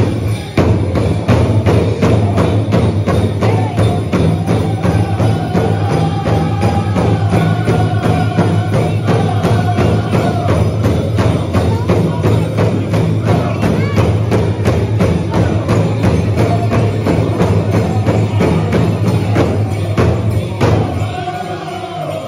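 Southern-style powwow drum group singing a men's straight dance song, beating a large shared drum in a steady, even rhythm under high group singing.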